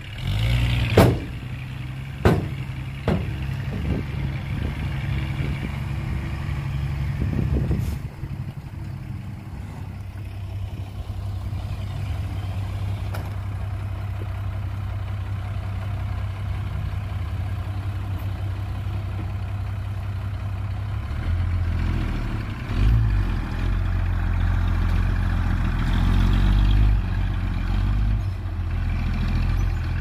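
Dump truck's diesel engine running, with a few sharp clanks in the first three seconds. From about two-thirds of the way through the engine grows louder and heavier as the truck pulls away.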